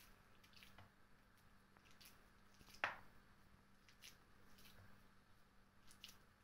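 Faint soft squishing of wet hands rolling small balls of meatball mixture, with scattered light clicks and one sharper click about three seconds in.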